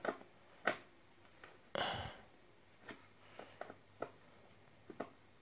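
Scattered light clicks and ticks of a motorcycle fairing bolt being unscrewed by hand, fingers knocking on the plastic panel, with a brief louder rustle about two seconds in.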